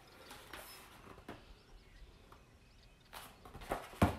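Picture-book pages being handled and turned: soft paper rustles and light clicks at irregular moments, with a sharper knock near the end.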